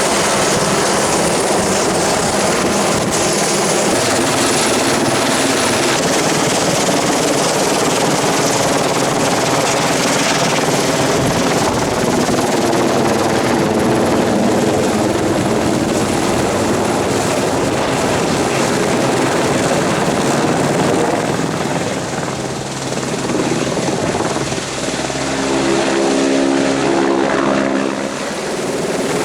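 Helicopter running, a loud steady rotor and engine noise. Near the end it dips slightly in level and a brief steady hum of several tones comes through.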